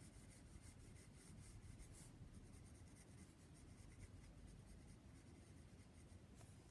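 Faint scratching of a pencil on sketchbook paper in short, repeated strokes as a drawing is shaded and outlined.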